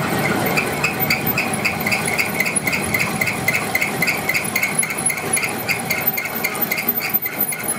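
Rapid, even metallic strikes, about four a second, each with a short ring, over a steady mechanical background noise.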